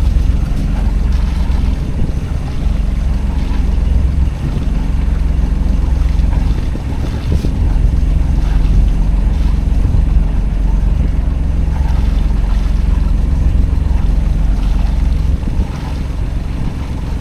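Steady low rumble on board a Catalina 36 sailboat under way, with a faint hum above it.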